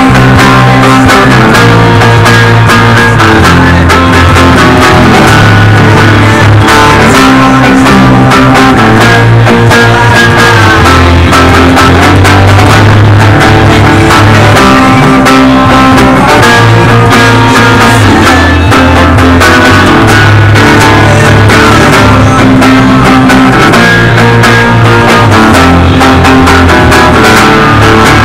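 A rock band rehearsing, very loud: electric bass, electric guitar and acoustic guitar playing together, with a heavy bass line shifting notes every second or two under strummed chords.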